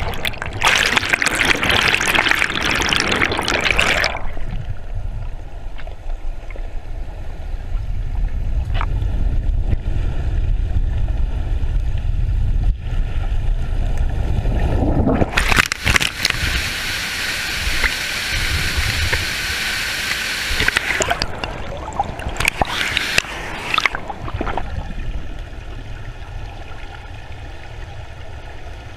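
Rushing, gurgling river water at the foot of a waterfall. Bright stretches of hiss near the start and again about halfway through alternate with a duller low rumble in which the high end drops away.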